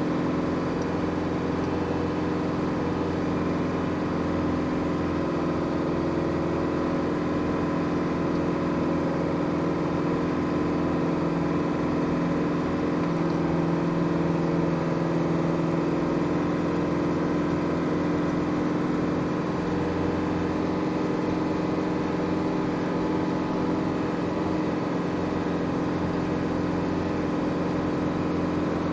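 Land Rover Defender 110's 300Tdi 2.5-litre four-cylinder turbodiesel engine running steadily under way, heard from inside the cab.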